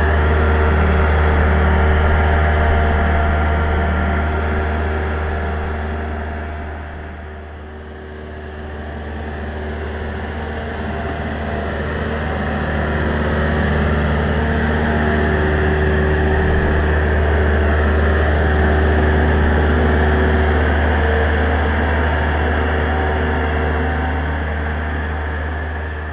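Boat engine running steadily with a deep rumble; it fades for a few seconds about a third of the way through, then comes back up.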